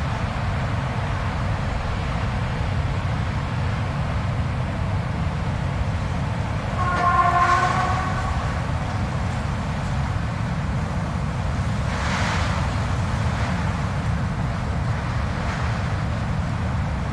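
Blizzard wind blowing in a steady deep rumble. About seven seconds in, a brief pitched tone sounds over it for a second or so, and a gust swells around twelve seconds.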